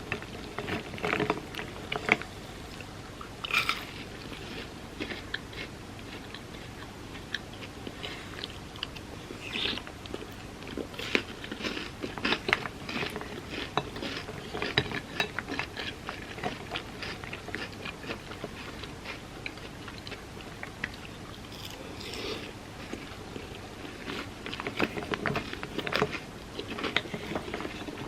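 Close-miked chewing and crunching of hazelnut-cream wafer bar pieces eaten as cereal in milk, in irregular bursts of bites and crunches with short pauses, quieter for a few seconds past the middle.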